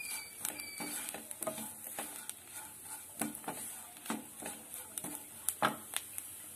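Wooden spatula scraping and knocking in a non-stick pan, stirring shallots, garlic, green chillies and curry leaves as they fry, in irregular strokes with the frying sizzle underneath. The strongest knocks come near the end.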